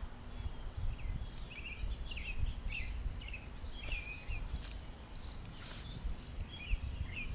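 Small songbirds chirping repeatedly in short, quick phrases, over an uneven low rumble.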